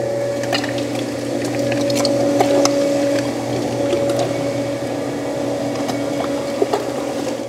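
Commercial electric meat grinder running with a steady hum while grinding bear meat into burger, with scattered small clicks as the meat is pushed through.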